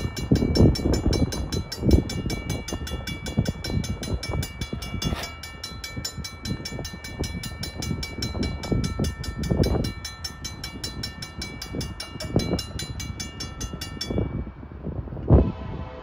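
Safetran mechanical crossing bell ringing with rapid, even strokes as the crossing activates and the gates come down. It cuts off about 14 seconds in, and a fainter ringing carries on after it. Low rumbling gusts run underneath.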